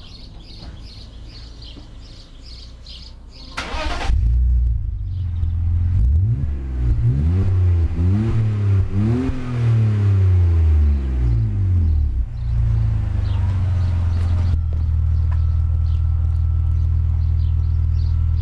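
BMW E46 320Ci's M54 straight-six through an Inoxcar aftermarket exhaust, starting about three and a half seconds in and settling to a steady idle, then revved in three quick blips that rise and fall before dropping back to idle. Birds chirp faintly before the engine starts.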